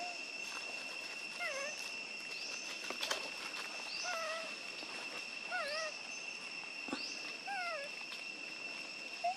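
A young macaque giving short wavering coo calls, one every second or two, over a steady high-pitched insect drone. A couple of sharp clicks come about three and seven seconds in.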